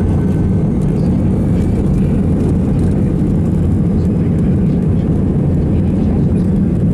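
Jet airliner heard from inside the passenger cabin while moving on the runway: a steady, loud, deep rumble of engines and rolling.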